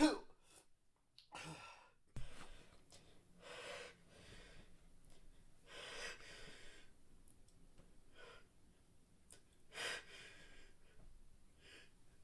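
A man breathing quietly between stifled sneezes: a string of short, faint sharp inhales and gasps every couple of seconds as the sneeze tickle builds again, with a louder breath near the end.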